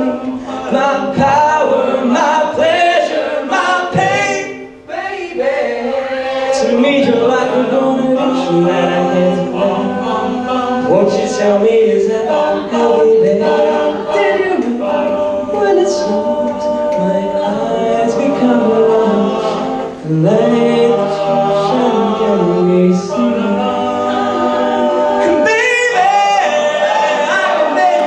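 Male a cappella group singing, a lead voice over sustained backing harmonies with no instruments, with a brief break about five seconds in.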